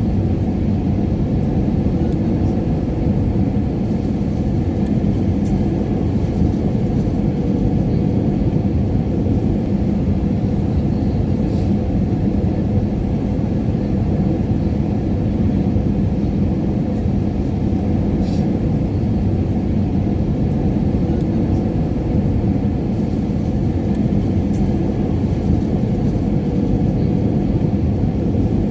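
Airliner cabin noise in flight: a steady low drone of engines and airflow with a faint hum running through it and a few faint ticks.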